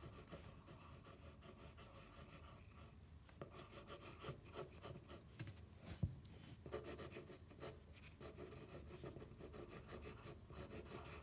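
Faint scratching of a pencil shading on paper in short, repeated strokes, with a single sharp tap about six seconds in.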